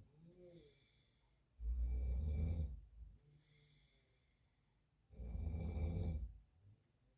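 A man snoring in his sleep: two low, rasping snores about a second long each, roughly three and a half seconds apart, with faint breathing between them.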